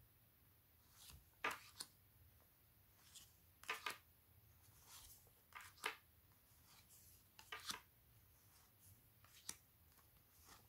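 Stiff cardboard oracle cards being handled one at a time: short, soft taps and slides of card on card, about half a dozen spaced irregularly over faint room tone.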